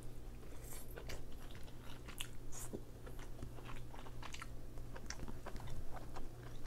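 Close-miked chewing of sauce-dipped king crab meat: irregular wet mouth clicks and smacks.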